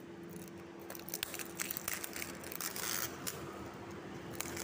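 Cardboard packaging of a boxed set of motorcycle spokes rustling and scraping as it is handled, with scattered small clicks and a denser stretch of crinkling between about one and a half and three seconds in.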